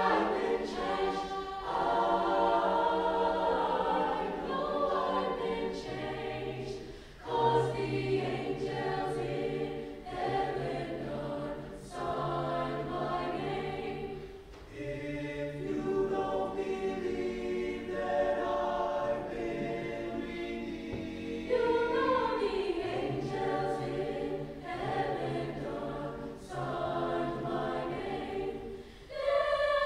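Mixed high school choir singing a gospel spiritual in parts, with sustained chords over a low bass line and short breaks between phrases.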